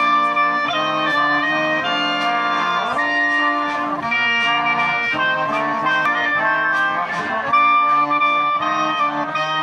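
Live brass band playing a waltz instrumentally, trumpet and trombone carrying the tune over a lower bass part.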